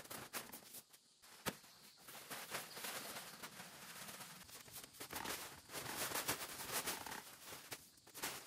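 Footsteps on plastic tarpaulin sheeting laid over a bamboo-slat floor, with irregular crinkling and scattered clicks, one sharp click about a second and a half in.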